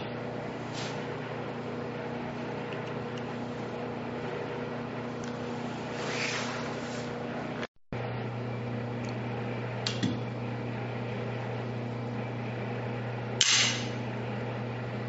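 Steady hum of an indoor range's ventilation, with a few brief clicks and handling noises from a compact Sig pistol being worked by hand, and one short sharp rasp near the end. The sound cuts out for a moment about halfway through.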